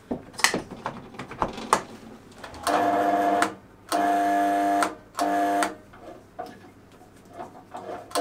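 Faulty drill press electric motor switched on three times in quick succession, each time giving a loud, steady hum for under a second before being switched off. It hums without starting by itself: the motor is broken and only runs when spun by hand.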